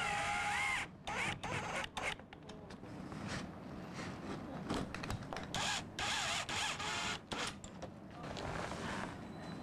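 Cordless drill/driver driving plasterboard screws through the sheet into timber studs. It runs in a burst at the start and then in several short bursts, the motor whine rising and falling in pitch as each screw goes in.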